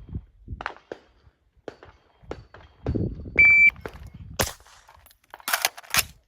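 Shot-timer start beep, then a single rifle shot about a second later, followed by the metallic clatter of an AR-style rifle being reloaded. Small handling clicks come before the beep.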